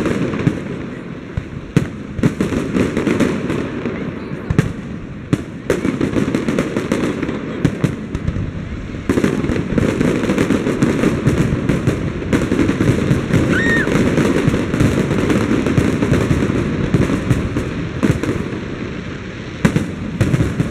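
Aerial fireworks display: shells bursting with sharp bangs over a continuous crackle, the barrage growing denser and louder about nine seconds in.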